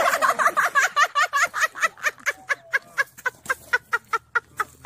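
A woman laughing hard in a fast run of short, high-pitched bursts, about five a second.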